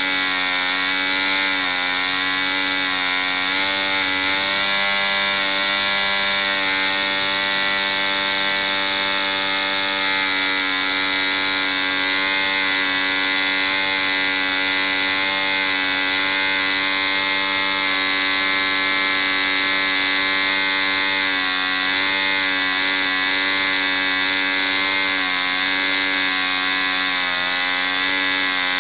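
ED 3.46 Hunter model diesel engine running on a test stand, turning an 11x6 wooden propeller at about 6000 rpm. It is a steady high buzz whose pitch dips slightly now and then.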